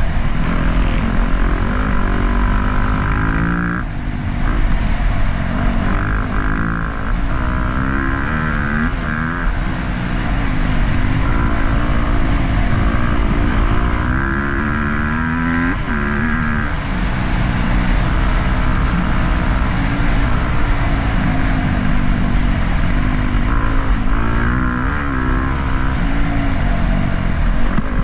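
Dirt bike engine under way on a trail ride, its revs rising and falling again and again as the throttle opens and closes, over a steady low rumble of wind noise on the microphone.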